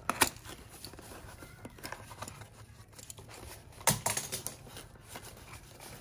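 Bubble wrap and cardboard packaging rustling and crinkling as a boxed tube of paint is worked out of a shipping box. There are two sharper crackles, one just after the start and one about four seconds in.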